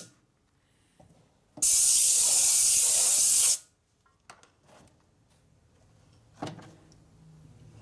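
Compressed-air blow gun hissing in one steady blast of about two seconds, blowing loose debris such as bits of rubber out of the inside of a motorcycle tire. A few faint clicks and a dull knock follow near the end.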